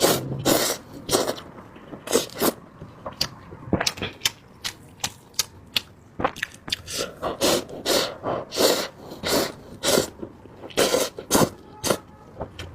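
Someone eating hot instant cup noodles, with a quick, irregular run of short slurps and chewing sounds, several a second.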